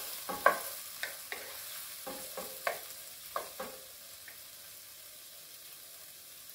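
Wooden spoon stirring and scraping chopped tomato, onion and scallion around a hot frying pan in a little oil, over a steady frying sizzle. The stirring strokes stop a little past halfway, leaving only the sizzle.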